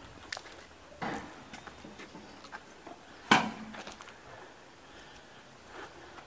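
Scattered footsteps and light clicks of an airsoft player moving, with a scuffing knock about a second in and one sharp, loud crack a little after three seconds.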